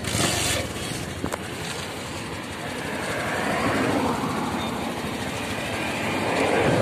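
Motorcycle engine running with wind and road noise during a ride, growing louder toward the end.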